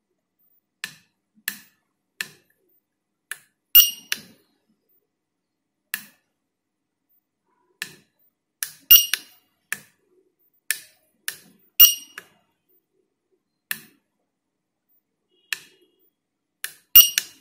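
Small tactile push-button switches on a circuit board being pressed one at a time: nearly twenty short, sharp clicks at uneven intervals, a few of them louder with a brief high ring.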